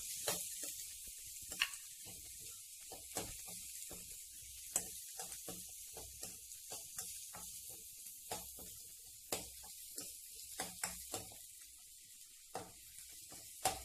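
Chopped onions and green chillies sizzling in hot oil in a stainless steel kadai, a steady high hiss, with frequent short clicks and taps as a steel spoon stirs them against the pan. The onions are being fried toward golden brown.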